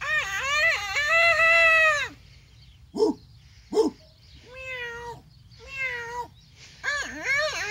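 A man doing a cat impression, meowing: one long wavering meow, two short sharp calls around three seconds in, then a run of shorter meows near the end.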